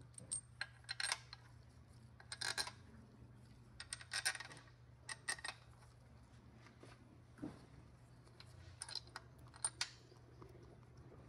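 Small steel bolts and washers clinking against an aluminium transmission case as they are set into their holes by hand: scattered light metallic clicks in small clusters, over a faint steady low hum.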